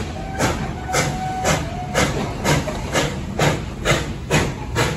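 Puffing Billy NA-class 2-6-2T steam locomotive 12A chuffing slowly and evenly, about two exhaust beats a second, as it moves carriages at shunting speed. A faint high squeal sounds briefly in the first two seconds.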